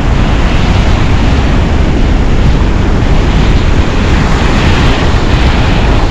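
Ocean surf washing in and breaking on the beach, with strong wind buffeting the microphone in a loud, steady rumble.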